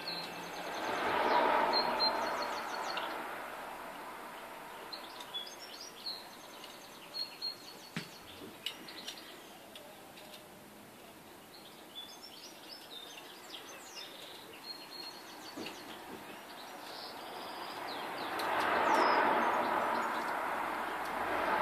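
Birds chirping, with a broad rushing noise that swells and fades twice: once about a second in and again near the end. A few faint clicks fall in between.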